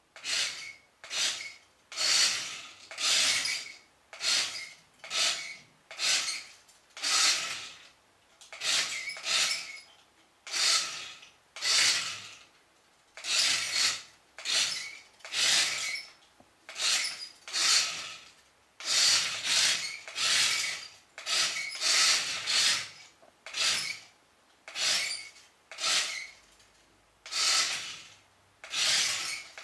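Domestic cat hissing over and over, about one hiss a second with short silences between: a defensive, threatened cat.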